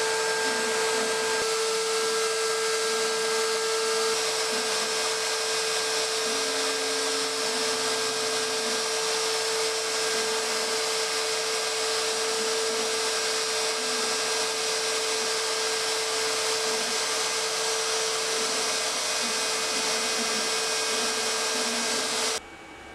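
X-Carve CNC router running: a steady loud rush of spindle and dust-extraction noise with a constant whine, and short, changing lower motor tones as the machine moves. It all cuts off abruptly near the end.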